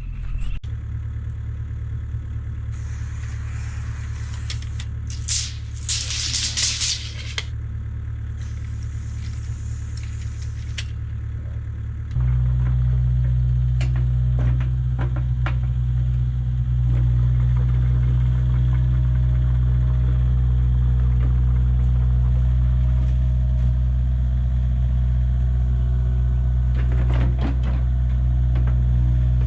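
Excavator engine running steadily, with bursts of hiss in the first ten seconds. About twelve seconds in it becomes louder and holds there, with a few knocks.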